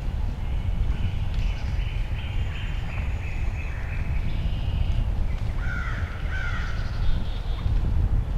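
Bird calls over a steady low rumble: a string of short, evenly spaced high notes, then two louder harsh calls about six seconds in.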